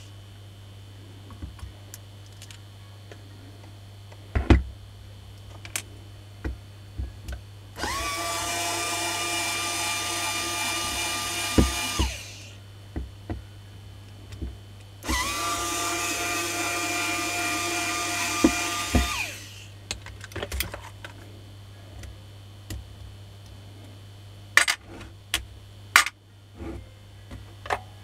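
Small corded electric drill run twice for about four seconds each, spinning up quickly to a steady whine and then stopping. Handling clicks and knocks of tools and parts come between the runs.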